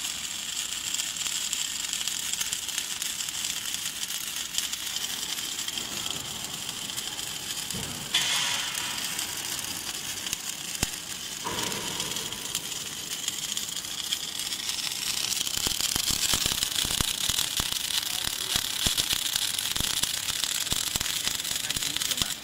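MIG welding arc running along the seam of a steel light pole, a dense crackling sizzle of spatter. The crackle grows thicker and louder in the second half.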